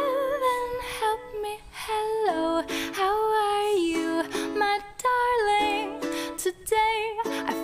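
Background music: a song with a singing voice over plucked strings.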